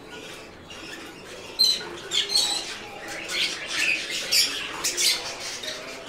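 Budgerigars chattering with many short, high-pitched chirps and squawks, one after another.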